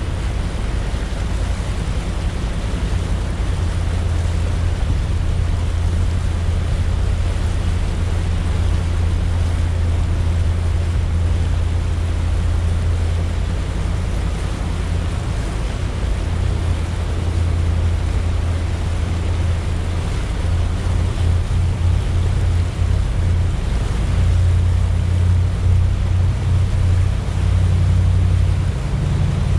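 Sea Ray Sundancer cruiser under way: a steady low drone of its Mercruiser 7.4 L inboard engine mixed with wind on the microphone, over the hiss of water rushing past the hull. The low rumble turns uneven in the last several seconds.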